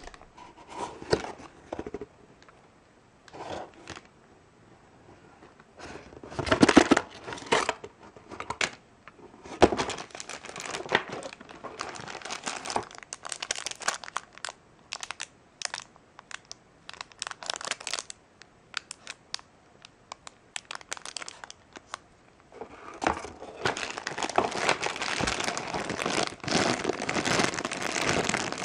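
Clear plastic packaging and a cardboard toy box being handled: irregular crinkling and rustling in short spells, becoming dense and continuous in the last several seconds.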